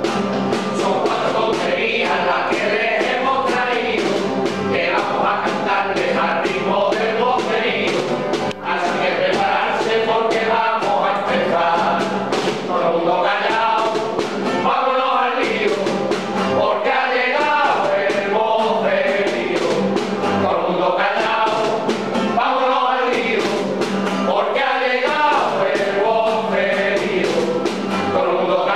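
A group of people singing together, accompanied by a strummed acoustic guitar.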